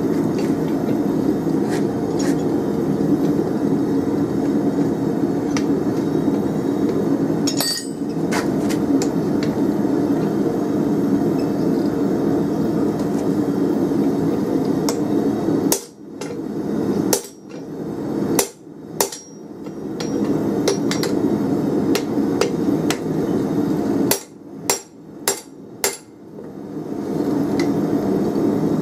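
Hand hammer striking a spring fuller on a red-hot 24mm round steel bar on the anvil, fullering a groove. There are about eight sharp blows in two groups, midway and near the end, over a steady low drone.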